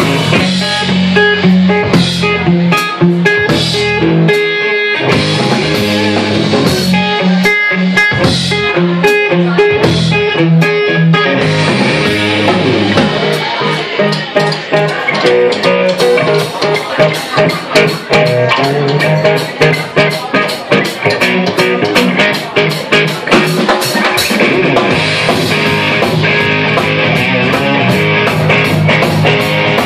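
Live rock band playing a blues-rock instrumental passage: electric guitar, bass guitar and drum kit. For about ten seconds in the middle the playing turns choppy, with repeated sharp accents.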